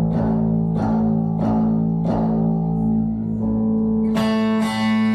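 Guitar played through a stage rig at a sound check: single plucked notes at an even pace over held low notes, then a bright ringing chord about four seconds in.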